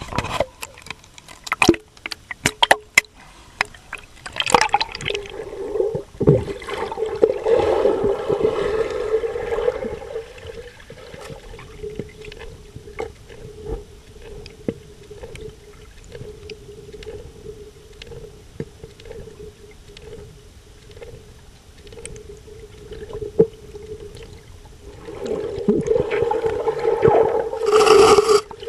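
Water splashing and gurgling with a few sharp clicks as the model diving robot goes under, then the steady whine of its small electric thruster motor heard underwater, growing louder near the end.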